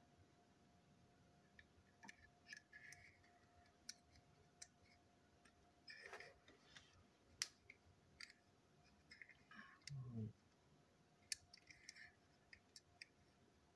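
Faint, scattered clicks and light taps of small plastic toy-train parts being handled and pried apart, with one sharper click about seven seconds in and a brief rubbing knock around ten seconds.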